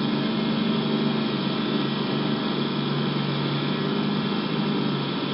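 A steady hum with a constant hiss, unchanging throughout, like a fan or small motor running.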